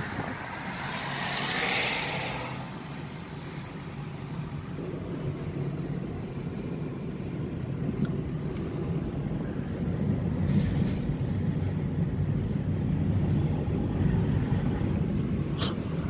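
Road noise inside a moving car: a steady low engine and tyre rumble that grows louder in the second half, with a brief rushing hiss near the start, another around ten seconds in, and a sharp click near the end.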